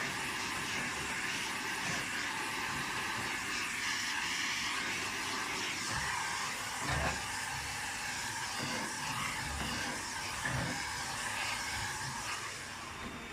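Hoover H Upright 500 Plus upright vacuum cleaner running, a steady motor and airflow hiss, with a couple of low bumps about 7 and 10 seconds in.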